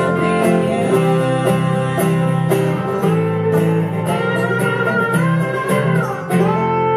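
Live country band playing an instrumental passage, led by strummed acoustic guitar over held notes, with one note gliding down near the end.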